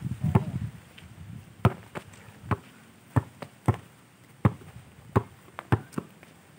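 Basketball dribbled on a dirt court: a run of about ten sharp bounces, roughly one every half-second to second.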